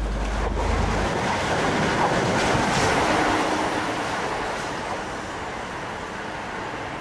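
Passenger train running along the line, a rushing rumble of wheels on rails that swells about three seconds in and then fades to a lower, steady noise.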